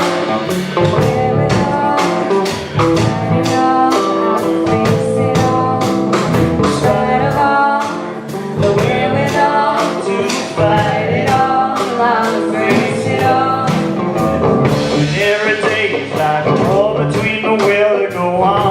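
Live performance of a folk-rock song: guitar strummed in a steady rhythm, with held melody notes over it.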